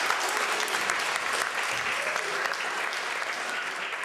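Audience applauding with many hands, the clapping slowly growing quieter toward the end.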